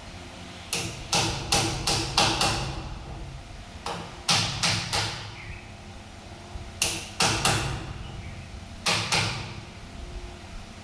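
Hammer blows on wood in four quick runs of two to five strikes each, with pauses of a second or two between runs.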